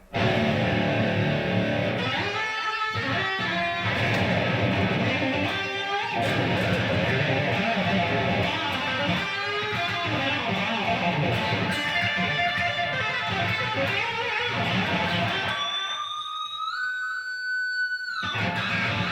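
Rock music led by distorted electric guitar, starting abruptly. About sixteen seconds in, the low end drops out and a lone guitar note is bent upward and held for a couple of seconds, then the full band comes back in.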